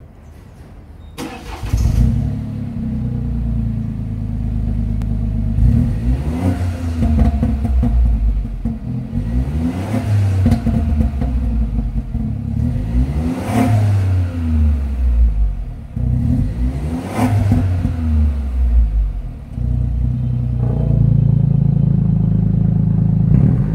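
BMW F30 318i's turbocharged engine through a stainless-steel active sports exhaust with its valves in street mode: it starts about a second in, settles to idle, and is revved about five times, each rev rising and falling in pitch.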